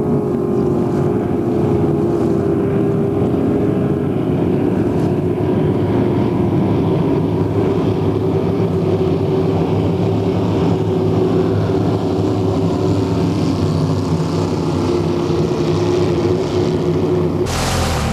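Motorboat engine running steadily at a constant pitch. Near the end the sound changes abruptly to a hissier engine-and-water noise.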